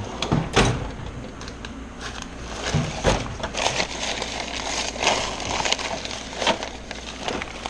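Rummaging through a set of metric tools for a 13 mm wrench: an irregular run of small clicks, clinks and rattles, with a few sharper knocks.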